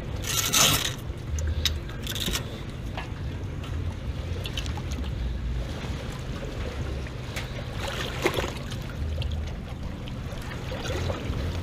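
Small waves sloshing against the pontoon boat's hull and swim ladder in shallow water, with wind rumbling on the microphone. A short splash and clatter about half a second in, as the aluminium swim ladder is flipped down into the water, and a couple of smaller splashes later.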